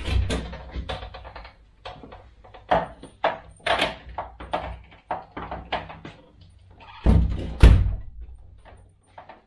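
Resistance bands' metal clips and door anchor clattering and knocking against a door as they are hung over its top edge, with a run of short knocks and rattles and heavy thuds against the door near the start and twice about seven seconds in.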